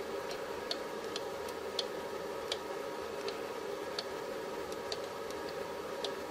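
Small sharp clicks, about two a second and unevenly spaced, from the NanoVNA-F's jog switch being pressed to step the marker frequency, over a steady low electrical hum.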